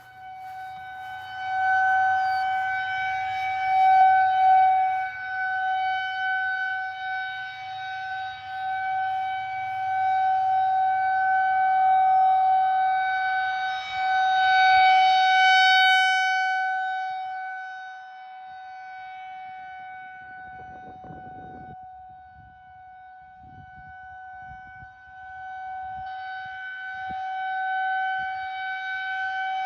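Federal Signal 2001-130 rotating electromechanical outdoor warning siren sounding the Alert signal: one steady tone that holds its pitch. It swells and fades as the rotating horn sweeps toward and away, loud early on and again about halfway, dropping low about two-thirds through, then swelling again near the end.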